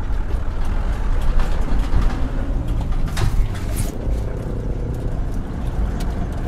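Engine of a light truck loaded with concrete electric poles running low and steady as it crawls through deep mud ruts, with a brief hiss about three seconds in.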